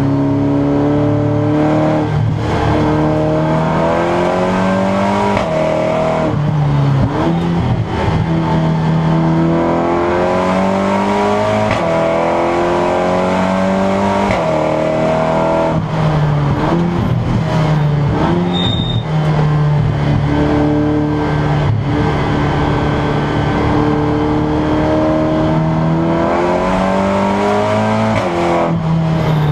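Seat Leon Supercopa racing car's turbocharged four-cylinder engine at full race pace, heard from inside the cabin: the note climbs through each gear and drops suddenly at every upshift, several times over, with falling stretches under braking.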